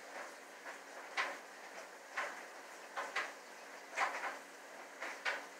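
Cat at a tin can on the floor, the can making short sharp scrapes and knocks about once a second as the cat works at it.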